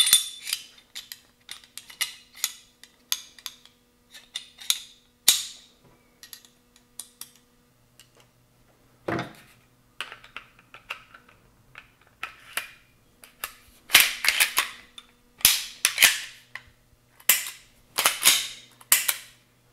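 Heckler & Koch SFP9 Match OR 9mm pistol being reassembled by hand: a run of metal and polymer clicks and scrapes as the barrel and recoil spring go into the slide and the slide slides back onto the frame, with louder sharp clicks in the last few seconds.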